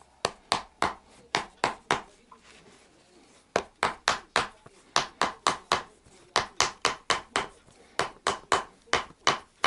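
A small hammer tapping on leather stretched over a form: sharp knocks about three a second, in runs of four to eight strikes with short pauses between them.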